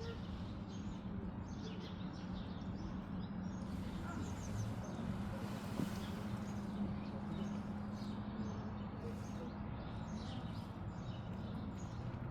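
Small birds chirping now and then over a steady low hum and background murmur.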